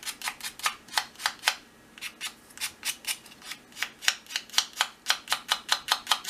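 Sandpaper rubbed in short back-and-forth strokes against a small plastic model tank turret, about four scratchy strokes a second with a brief pause about two seconds in. It is smoothing away small rough spots and leftover plastic on the part's sides.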